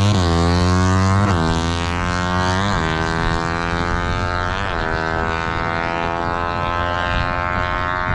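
Small drag-race motorcycle engine at full throttle on a test run, revving up through the gears with the pitch dropping at each upshift, four shifts in the first five seconds. It then holds a steady high note, growing fainter as the bike pulls away.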